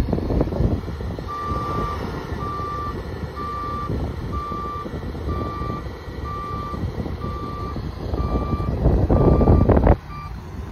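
A vehicle's reversing alarm beeping at one steady pitch, about once a second, about ten times. A low rumble runs under it, swelling loudest near the end and then dropping off suddenly.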